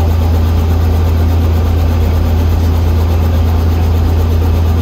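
Helicopter engine and rotor running at a steady pitch, a loud, unchanging low drone heard from inside the cabin.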